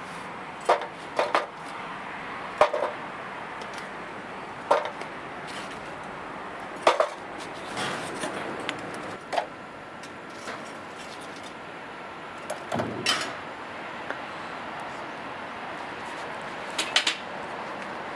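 Metal tongs clinking and knocking against a sheet-metal tandoor and lumps of charcoal as spent coals are raked out from its base, in about a dozen irregular sharp knocks over a steady low hiss.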